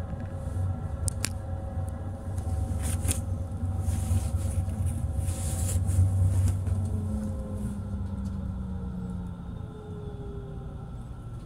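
Tram running on its rails: a steady low rumble with a few sharp clicks from the track, and a motor whine that falls in pitch over the second half as the tram slows.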